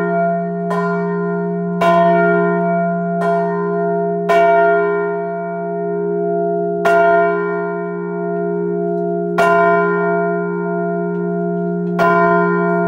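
Large cast-steel church bell being rung, its clapper striking seven times: about once a second at first, then only about every two and a half seconds. Each stroke rings on over a steady deep hum.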